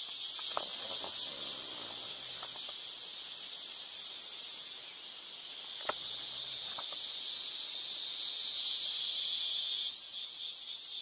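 Dense, high-pitched chorus of rainforest insects, a steady hiss that grows louder and then turns into a fast pulsing near the end, with a few faint clicks underneath.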